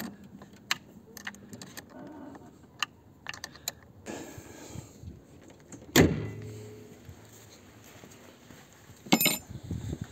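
Scattered light clicks and metallic clinks from handling parts and tools on a car, with one heavy thud about six seconds in that rings briefly, and a short clatter near the end.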